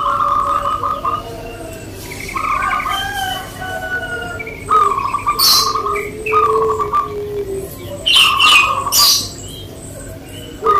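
Zebra doves (perkutut) cooing in repeated trilled phrases, note after note, with other birds chirping higher up and a few sharper, louder calls about halfway through and near the end.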